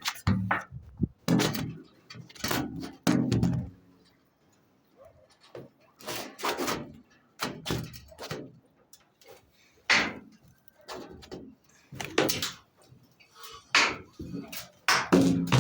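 A series of irregular knocks and clunks, some ringing briefly, with a pause about four seconds in.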